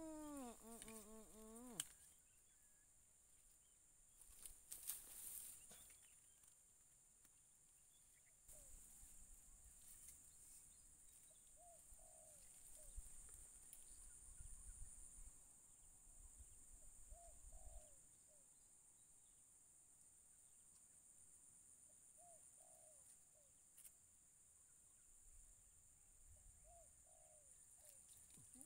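Near silence: faint marsh ambience with a steady high insect drone, a short call falling in pitch at the very start, and a faint bird call repeating about every five seconds.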